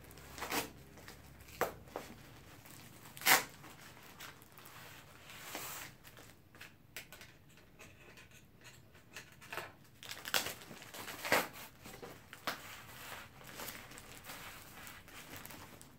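Plastic parcel wrap crinkling and tearing as it is cut open with scissors and handled: irregular short, sharp crackles and rustles, the loudest about three seconds in.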